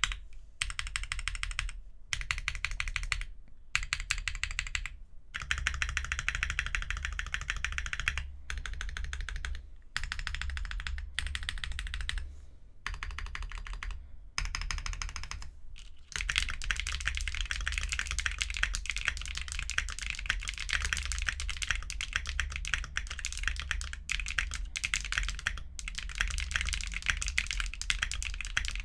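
Typing on a Wind X 65% mechanical keyboard with Strawberry Milk tactile switches on a carbon fiber plate: fast runs of keystrokes broken by brief pauses at first, then continuous typing from about halfway.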